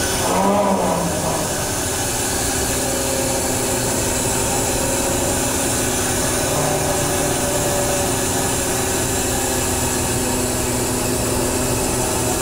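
Steady drone of a fishing boat's engine and hydraulic hauling gear running, heard from inside the wheelhouse, with several held tones. A short louder sound rises over it about half a second in.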